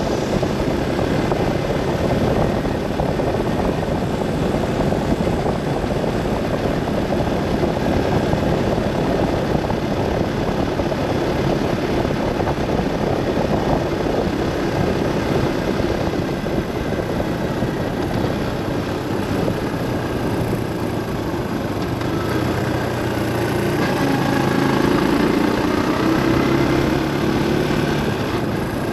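Car driving along a road: steady engine and road noise, swelling slightly a few seconds before the end.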